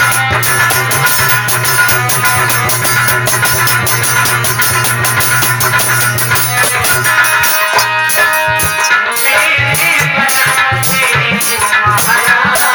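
Instrumental music with a fast, steady drum beat over a low held drone, without singing.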